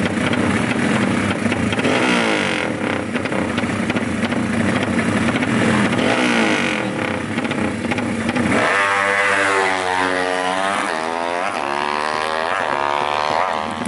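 Drag-racing motorcycles revving hard together at the start line. About nine seconds in, engines are heard accelerating away, the pitch climbing, dropping at each gear change and climbing again.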